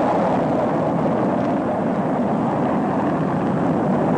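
Rocket engines roaring during a launch ascent: a steady, even noise with no change in level.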